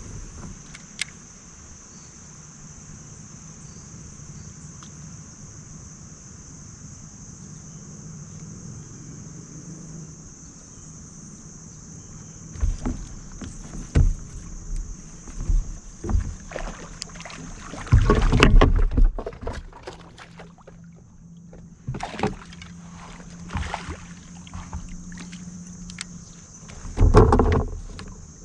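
Plastic fishing kayak under way with a steady low hum, then a run of knocks and thumps against the hull, with two heavier clatters in the second half. A steady high-pitched buzz runs underneath.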